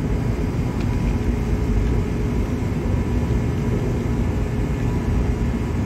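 Steady low drone of running machinery with a faint steady hum over it.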